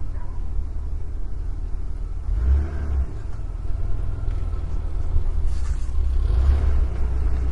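Downtown street ambience: a steady low rumble of road traffic, swelling twice as vehicles pass.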